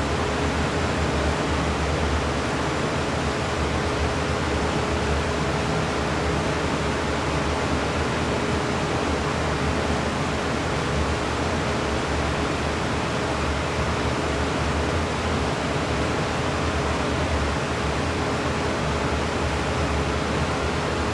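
Bank of electric wind-generator fans running steadily: an even rushing noise with a constant hum.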